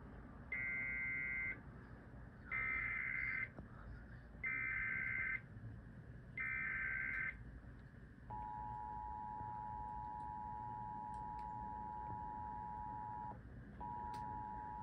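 Emergency Alert System broadcast: four roughly one-second bursts of screeching digital data tones (the SAME header), then the steady two-tone EAS attention signal. The attention tone breaks off briefly near the end and starts again. It heralds a severe thunderstorm warning.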